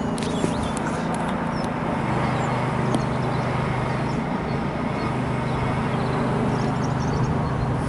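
Steady outdoor background noise with a low hum that drops in pitch about two seconds in, and a few sharp clicks in the first three seconds.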